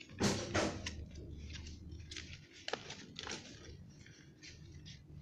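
A sheet of paper rustling and crinkling as it is handled, folded and creased into a paper popper, with a louder crackle about a quarter of a second in and a run of smaller crinkles after it.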